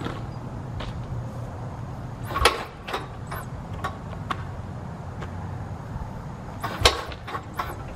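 Sharp clacks, the loudest about two and a half and seven seconds in, as the propeller of an Aeronca Chief light aircraft is pulled through by hand for a cold start, its engine not yet firing. A low steady rumble runs underneath.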